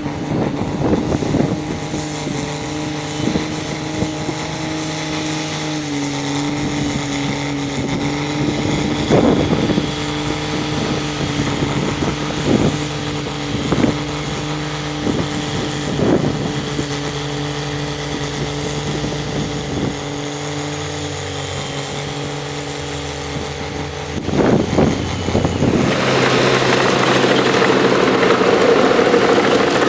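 Heavy diesel construction machinery running steadily, with short knocks or clanks every second or two. Near the end the sound jumps to a louder, rougher engine.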